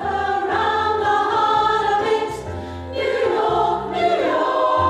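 Women's choir singing long held notes, moving to a new chord about three seconds in.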